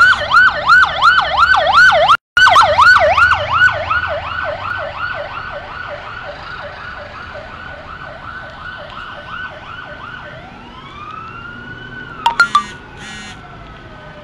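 Emergency-vehicle siren in a fast yelp, about three sweeps a second, loud at first and then fading as it moves away. From about ten seconds a second siren comes in with a slow wail that rises and falls. A few short, sharp loud blips sound near the end.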